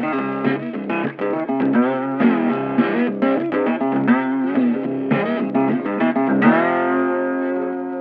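Blues guitar music: a lead guitar plays quick phrases with bent, wavering notes, then settles about six and a half seconds in on a held chord that rings and slowly fades.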